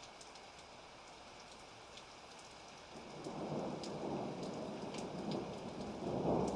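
Thunderstorm: steady rain with scattered sharp drips. About three seconds in, a rumble of thunder builds, swelling loudest near the end.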